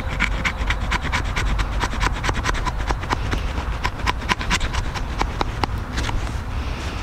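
Herbertz 585518 knife blade scraping and shaving a stick of wood on a chopping block in quick short strokes, several a second, stopping about six seconds in.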